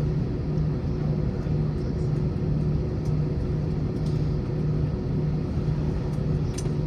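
Cabin noise of an Airbus A321 taxiing after landing: a steady low rumble with a hum that swells and fades about twice a second. There are a few faint clicks near the end.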